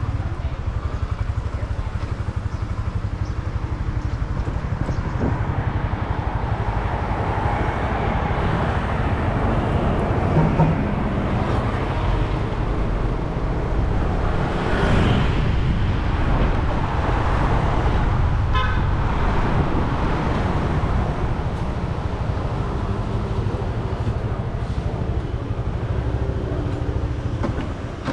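Motor scooter riding along a road with a steady low rumble. A vehicle passes about halfway through, and a short horn toot sounds about two-thirds of the way in.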